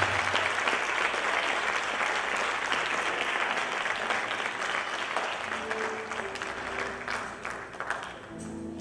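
Audience applauding, the clapping gradually dying down. A few faint sustained musical notes come in near the end.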